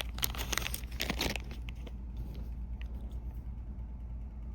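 Plastic packaging crinkling and tearing as a pack of fuel-line fittings is opened by hand, a crackly rustle that stops about a second and a half in, leaving a steady low hum.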